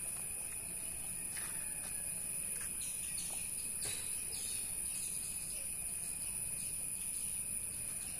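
Steady chorus of insects, a constant high-pitched trill with a few faint clicks scattered through it.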